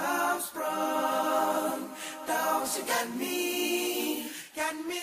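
Unaccompanied vocal music: voices singing long held notes, with short breaks between phrases.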